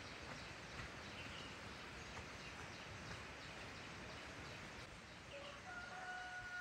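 Faint rural outdoor ambience with a few small bird chirps. Near the end a distant rooster crows, its last note held long and steady.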